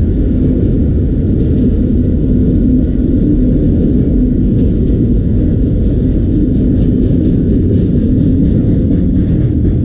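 Autorack freight train cars rolling past with a steady, loud low rumble, and faint rapid clicking of wheels on the rails from about six seconds in.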